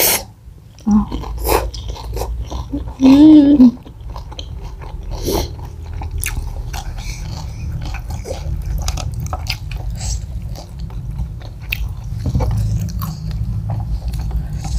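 Close-miked chewing and biting of fried chicken, with many small wet mouth clicks and some crunch. A brief loud vocal sound comes about three seconds in.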